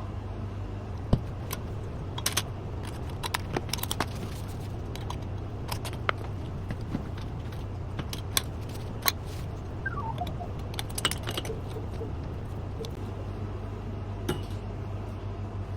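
Kitchen prep handling sounds: scattered light clicks, taps and clinks of utensils and containers over a steady low hum, with a short falling squeak about ten seconds in.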